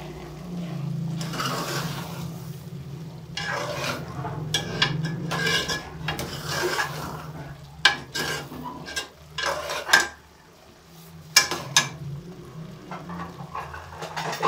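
A metal ladle stirs and scrapes thick chana dal and pumpkin frying in a metal pot, with a sizzle under the stirring. The ladle knocks sharply against the pot several times in the second half. This is the frying stage of the dal before water goes in.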